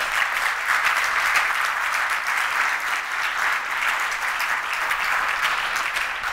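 Audience applauding steadily, a dense, even patter of many hands clapping.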